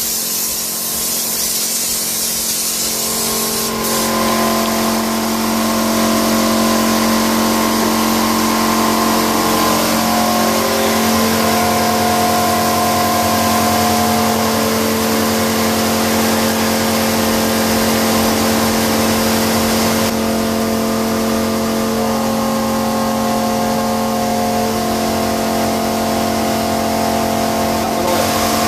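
Compressed-air spray gun hissing as it sprays bedliner for the first few seconds. It stops, leaving a steady machine hum with several held tones, the air compressor running.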